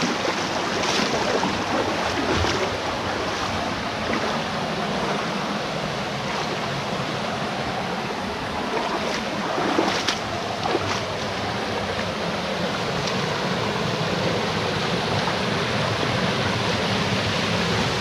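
A jungle stream rushing steadily over rock cascades. A few light knocks come through, the clearest about ten seconds in.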